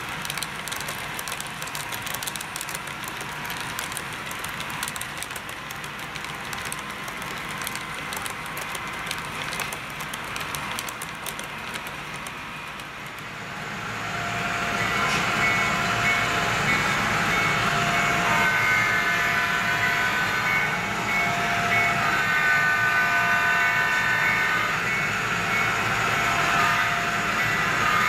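HO-scale model freight train running on its track, with a fine clicking rattle from the wheels and rail joints. About halfway through it gets louder, adding a fuller rumble and several high, steady whining tones that come and go.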